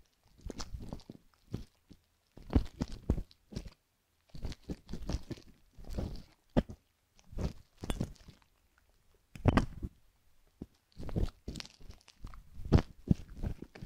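Close-up crunchy scraping and clicking of a metal ear hook and tweezers working inside the canal of a silicone ear model, picking off a hardened crust in irregular short strokes.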